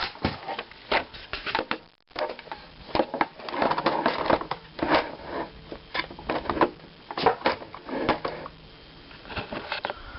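Plastic clicks, knocks and rattles from a DX Taja Spinner toy being handled and fiddled with, coming in quick irregular bunches.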